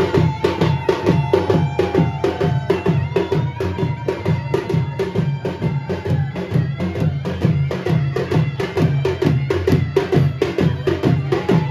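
Devotional festival drums beaten in a fast, steady rhythm, about five strokes a second, with long held high notes sounding over them through the first half and again near the end.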